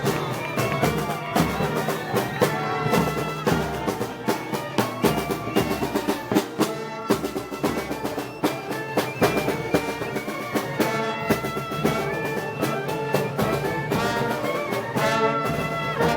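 A brass band playing festival music: trumpets and trombones over drums and cymbals, with frequent strikes.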